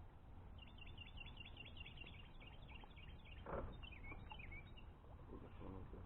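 A songbird singing a fast trill of repeated high chirping notes, ending in a few falling notes, over a low wind rumble. A soft dull thump comes about halfway through.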